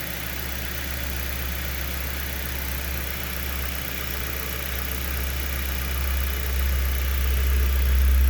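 A 2011 Dodge Avenger's 2.4-litre four-cylinder engine idling steadily, with a heavy low hum that grows louder toward the end.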